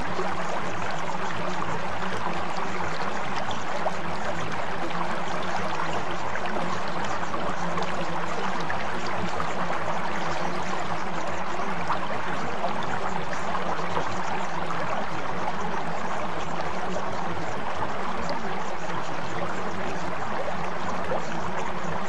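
Steady running water, like a flowing stream, with no change in level, and a few faint low steady tones held underneath.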